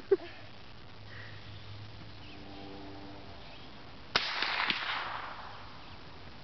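A single shot from a bolt-action .22 rifle about four seconds in: a sharp crack that trails off in a short echo lasting about a second. A short pitched sound comes right at the start.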